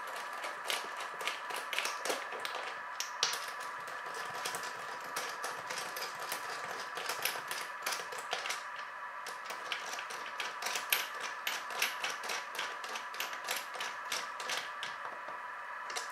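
Small metal wheel nuts being spun on by hand and run down the threaded bolts of a scooter wheel hub: a continuous run of irregular light metallic clicks and ticks, over a steady high hum.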